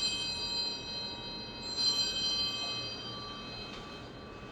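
Altar bells (Sanctus bells) ringing at the elevation of the consecrated host. They ring at the start, are struck again about two seconds in, and the ringing fades away.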